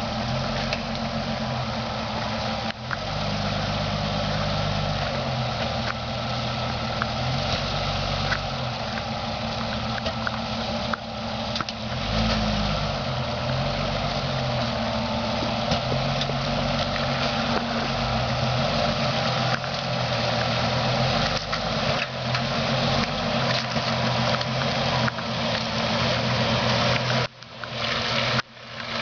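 Military jeep engine running at low revs while crawling off-road, its pitch stepping up and down as the throttle changes, under a steady hiss. The sound drops out briefly twice near the end.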